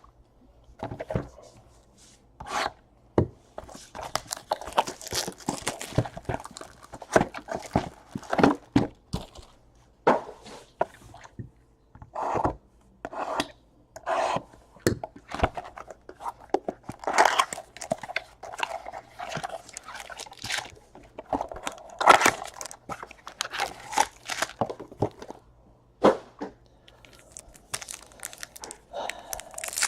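Trading-card packs being torn open and the cards handled: a long run of irregular rustles, crinkles and small clicks.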